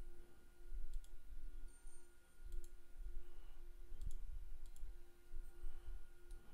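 Computer mouse clicking every second or so, over low desk thumps and a steady hum.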